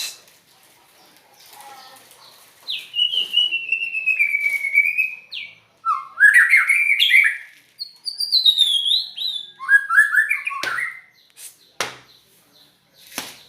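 White-rumped shama singing: a long whistled note sliding slowly downward, then several quick warbling phrases that jump up and down in pitch. Two sharp clicks follow near the end.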